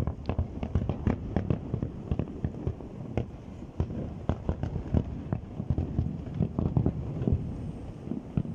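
Fireworks display going off in a dense, irregular barrage of bangs and crackles, several a second, overlapping without pause.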